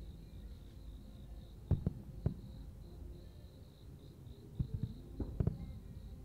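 Crickets chirping steadily, a high pulsing trill, over a low rumble, with a few short dull thuds around two seconds and five seconds in.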